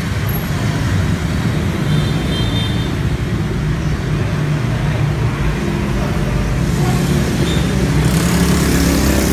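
Steady rumble of road traffic, engines running, growing louder and hissier near the end.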